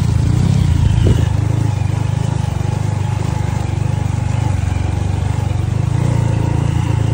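Small motorcycle engine running steadily, heard up close from the bike while riding.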